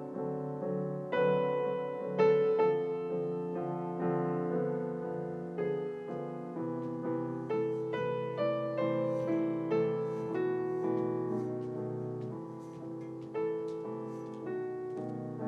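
Solo piano playing a slow, sad melody over sustained chords, one struck note or chord after another.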